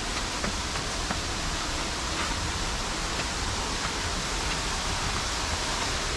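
Steady rushing of falling water from a waterfall beside stone steps, with a few faint footsteps on the stone.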